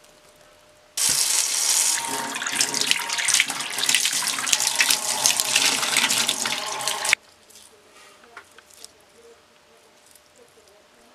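Tap water running into a sink and splashing over a shallow reptile water dish held under the stream as it is rinsed out. The water starts suddenly about a second in and cuts off sharply about six seconds later.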